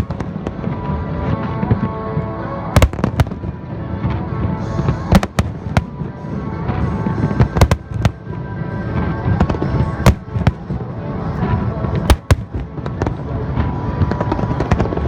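Aerial fireworks shells bursting in sharp bangs at irregular intervals, several clustered close together, with music playing underneath.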